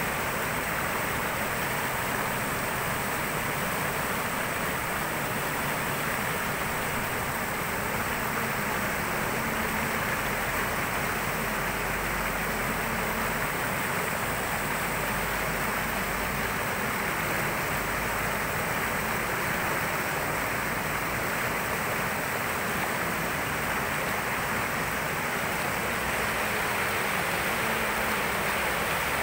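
River in flood rushing in rapids over and around rocks: a steady, unbroken rush of fast-moving muddy water.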